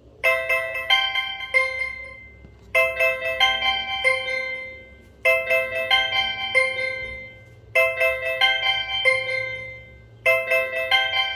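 BlackBerry 8820 ringtone playing: a short tune of a few quick, bell-like notes ending on a held, fading note. It starts just after the opening and repeats about every two and a half seconds, five times.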